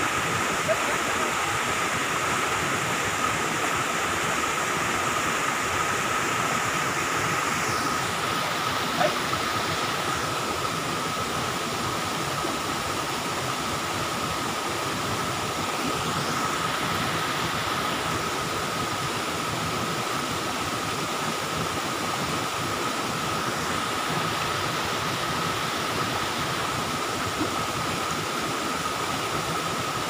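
Steady rush of water from a jungle waterfall and stream, with a thin high-pitched tone held steady through it.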